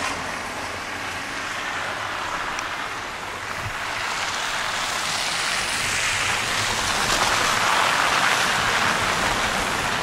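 Traffic passing on a snow- and slush-covered road: a steady hiss of tyres through slush, growing louder from about five seconds in as a vehicle comes close.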